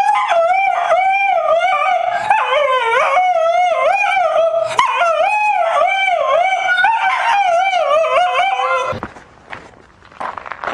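A dog howling loudly in long, wavering, sing-song notes, almost unbroken, stopping about nine seconds in.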